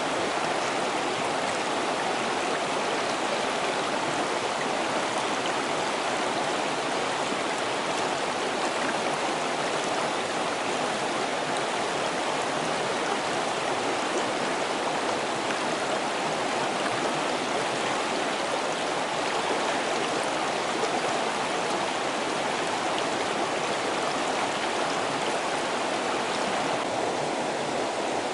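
Water of a small rocky stream running over stones in shallow riffles, a steady even rush with no break. It turns slightly duller about a second before the end.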